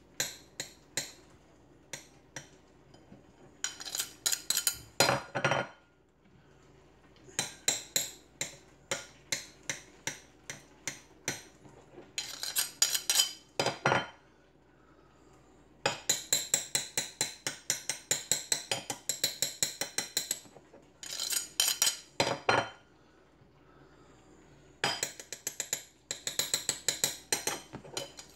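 Knife blade striking a plate again and again while slicing hard-boiled eggs: quick runs of sharp clicks with short pauses between them.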